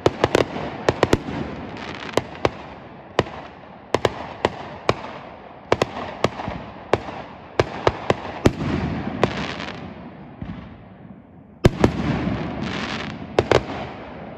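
Aerial fireworks going off in a rapid, uneven string of sharp bangs and crackles, each leaving a rolling echo, with a bigger boom about eight and a half seconds in and the loudest one near twelve seconds.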